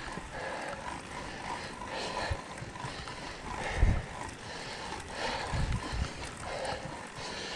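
Mountain bike rolling down a dirt singletrack: tyre and trail noise with low thumps as the bike hits bumps, the loudest about four seconds in and two more near six seconds, with the rider's heavy breathing pulsing over it.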